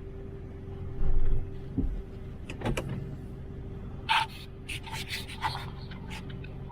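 Vehicle running slowly as it is turned around on a rough dirt road: a steady engine hum with a low thump about a second in, then a string of short creaks and rattles.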